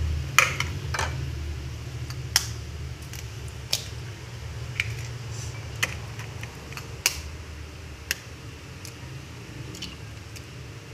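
Eggs cracked against the rim of a ceramic bowl: sharp, separate taps about once a second, over a low steady hum.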